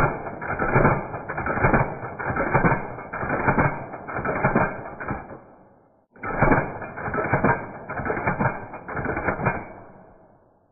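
KSC/KWA HK417 gas blowback airsoft rifle cycling in two long strings of rapid metallic clacks as the bolt carrier slams back and forth against the recoil buffer. The second string starts about six seconds in, and each one fades as it runs down.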